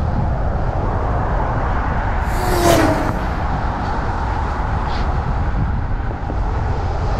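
Wind rushing over the microphone of a camera on a road bike descending at speed, a steady low rumble with road hiss. About two and a half seconds in, a brief louder whoosh.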